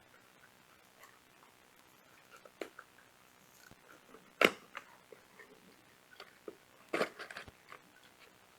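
Cardboard battery packaging being worked open by hand: scattered crinkles and small clicks of the flaps, with a sharp snap about four and a half seconds in and a short cluster of snaps around seven seconds.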